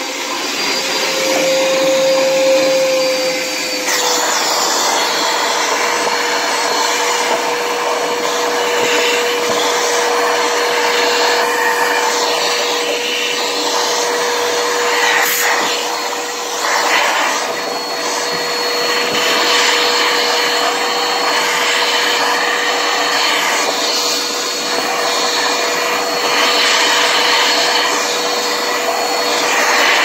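Vacuum cleaner running with a steady whine, its hose sucking packed dust and lint out of a refrigerator's clogged condenser coil.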